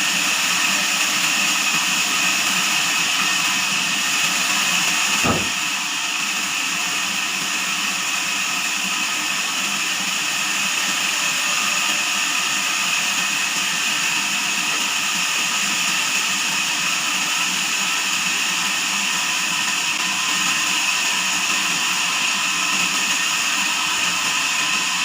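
Band sawmill running steadily with a constant mechanical whine, with one sharp knock about five seconds in.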